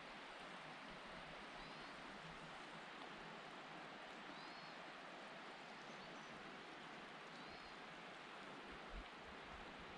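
Faint, steady hiss of quiet mountain-forest ambience, with a small bird's short high chirp coming faintly a few times, two to three seconds apart.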